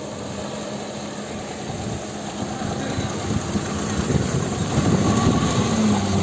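Maruti car driving on a rough unpaved road: engine running with tyre and road rumble, growing louder and rougher about halfway through.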